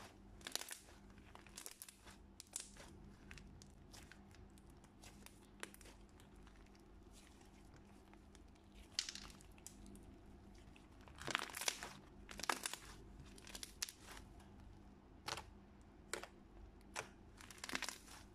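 Thick slime full of foam beads being kneaded, squeezed and stretched by hand: irregular soft crackles and crunches in clusters, loudest around eleven to thirteen seconds in.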